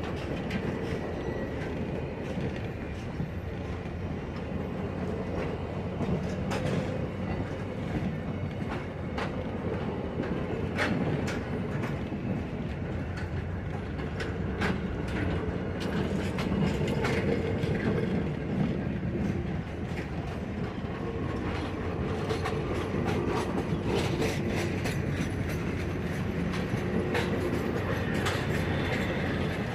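Ohio Rail Experience passenger train rolling on the track: a steady rumble with many sharp wheel clicks over the rail joints, and a faint high wheel squeal coming in near the end.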